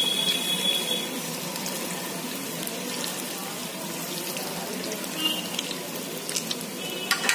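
Chicken spring rolls deep-frying in hot oil, a steady sizzle, with a few short metal clicks of the tongs turning them in the pan.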